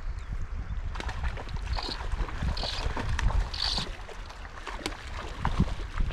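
Wind buffeting the microphone over the running water of a shallow, rocky stream, with three brief high-pitched squeaks a second or so apart about halfway through.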